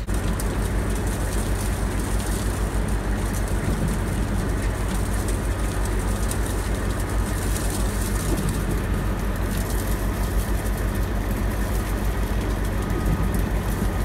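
Vehicle engine and tyre noise heard inside the cab, a steady low rumble while driving slowly on a snow-covered road.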